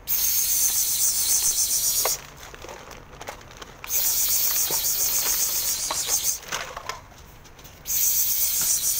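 An insect calling in three bouts of a loud, high, rapidly pulsed rasping buzz, each about two seconds long, starting and stopping abruptly.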